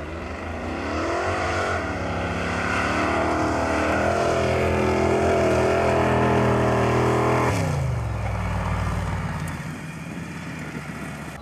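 Mud drag vehicle's engine at full throttle through a run. The revs climb, fall back once about two seconds in, then hold high and steady. About seven and a half seconds in the revs drop sharply as the throttle is lifted, and the engine fades away.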